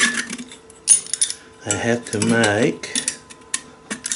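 Metal pieces clinking and scraping as they are handled, in a series of irregular sharp clicks, with a brief wordless vocal sound about two seconds in.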